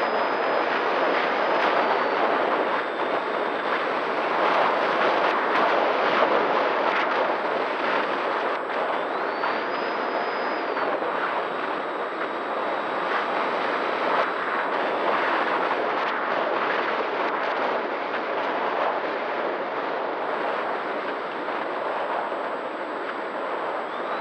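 Wind rushing over the onboard camera of an Opterra RC flying wing in flight, over the steady sound of its electric motor and propeller. A faint high whine rises and falls a few times.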